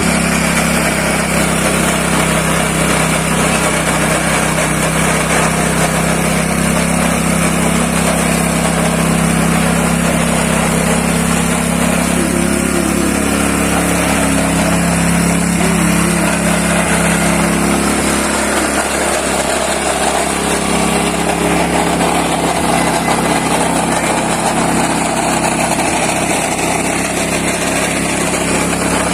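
Engine-driven wet coffee pulping machine running steadily. Its low engine hum thins about two-thirds of the way through while a higher rattle grows.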